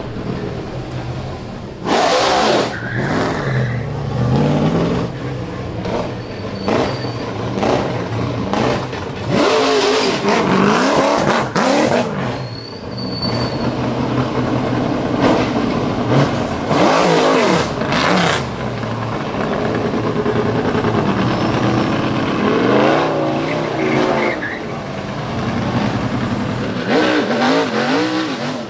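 NASCAR stock cars' V8 engines being blipped and revved at low speed through a U-turn, the pitch rising and falling again and again, with one car following another.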